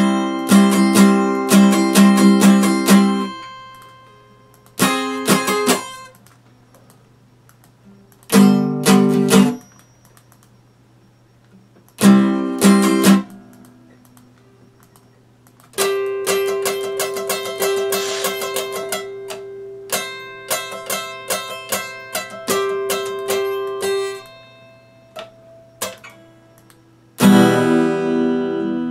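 Epiphone steel-string acoustic guitar strummed in short bursts of chords with pauses between them, then a longer run of repeated strums and picked notes lasting about eight seconds, and one more loud strum near the end.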